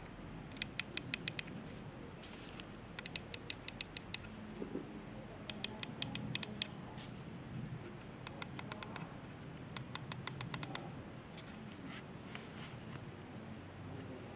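Computer mouse button microswitches clicked in quick runs of about six or seven sharp clicks within a second, the runs repeated several times.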